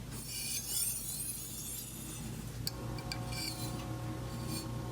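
Chef's knife edge stroked repeatedly across a fine finishing stone with light pressure: a nice, smooth, soft rasp of steel on stone. The fine grit is refining the edge to an extremely keen edge.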